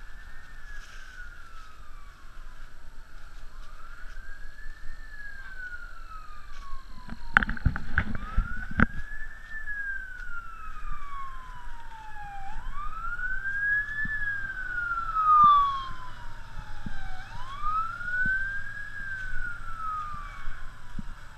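A distant siren wailing in repeated slow cycles, rising quickly and falling more slowly, about once every four to five seconds. A few low thumps and wind rumble on the microphone come about a third of the way in.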